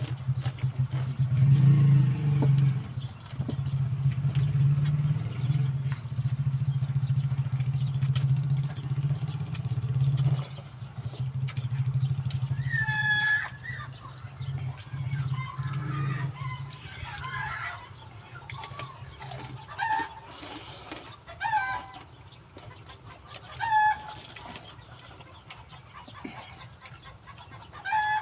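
Chickens clucking and a rooster crowing, in short separate calls through the second half. A steady low drone runs under the first half and stops about halfway through.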